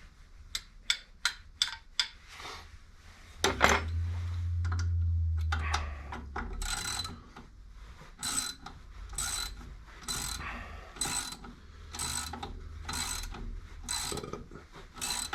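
Hand ratchet wrench working a fastener, clicking in strokes about once a second, after a few sharp metal clicks and a loud clank about three and a half seconds in, followed by a brief low hum.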